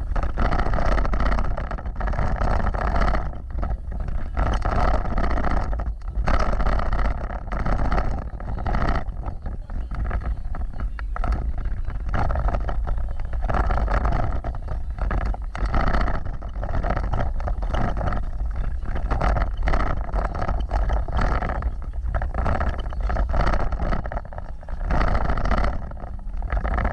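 Vehicle driving off-road: a continuous heavy rumble that swells and dips every second or two, broken by frequent short jolts.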